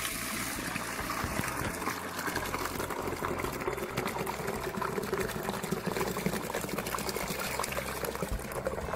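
Dirty waste water from a PowrFlite PFX1350 carpet extractor's waste tank pouring steadily out of a drain hose into a plastic bucket.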